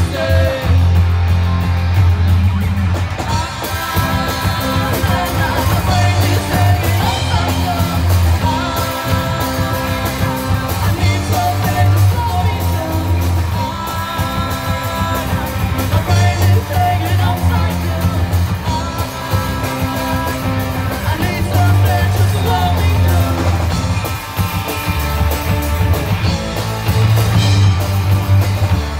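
Live rock band playing: distorted electric guitars, bass and a drum kit, with two female vocalists singing over them.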